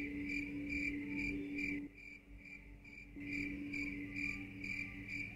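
Crickets chirping, an even pulsed chirp about twice a second. Under it runs a steady low hum that drops out about two seconds in and returns about a second later.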